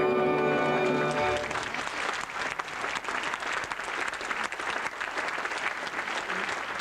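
A theatre audience applauding, after the music's held final chord cuts off about a second and a half in.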